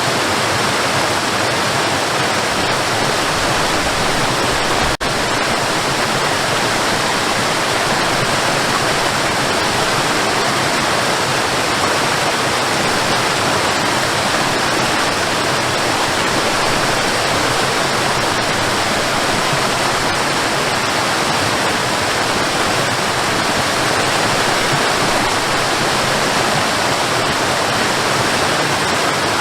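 Waterfall: a steady, dense rush of falling water, with one momentary dip in level about five seconds in.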